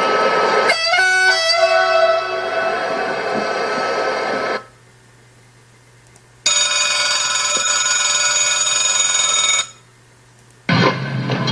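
Recorded railway sound effects played through loudspeakers. First comes rumbling train noise with a falling run of tones about a second in, which cuts off sharply; after a pause a steady electric bell-like ringing lasts about three seconds. Near the end a loud rising whine starts, with several tones climbing together.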